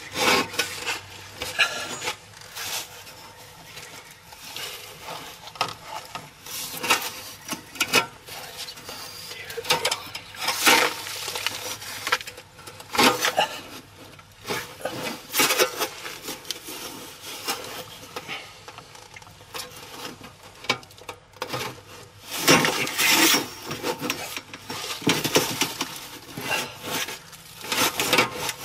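Metal anchor strap being handled and worked around a mobile home's steel I-beam: irregular scraping, rubbing and light clinking of metal on metal. It comes louder in spells about ten seconds in and again in the last third.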